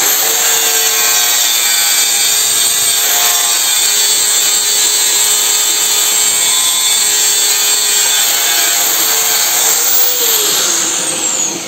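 Angle grinder with a flap disc sanding rust off a steel pipe that spins in a homemade lathe: a steady, loud grinding whine. Near the end the grinder is lifted off the pipe and its whine falls in pitch as it winds down.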